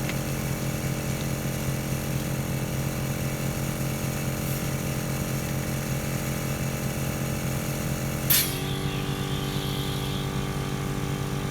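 Smittybilt 2781 portable 12-volt air compressor running steadily with a pitched hum while it inflates a large off-road tire, working against pressure at about 25 PSI. A single sharp click comes about eight seconds in, after which the running note changes slightly.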